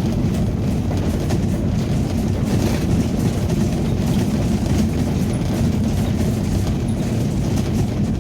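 Ambulance driving along a forest road: a steady low rumble of engine and road noise with faint rattling clicks.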